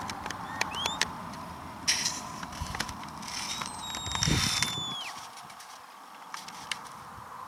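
Shepherd's whistle commands to a working sheepdog: a short rising whistle about a second in, then a longer held whistle that falls in pitch at its end, around four seconds in. Scattered sharp clicks and short rushes of hiss come through as well.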